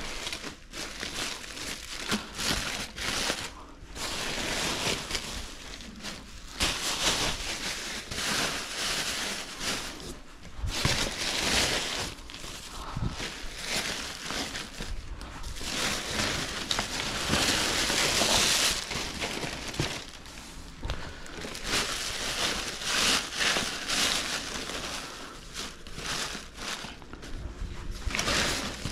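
Packing cushioning material crinkling and rustling as it is crumpled and stuffed into a cardboard shipping box, in irregular bursts with short pauses.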